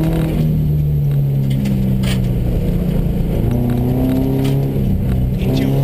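Subaru rally car's flat-four engine, heard from inside the cabin, under load on a gravel stage. Its pitch climbs and drops as the car accelerates and shifts, over gravel noise from the tyres, with a single sharp crack about two seconds in.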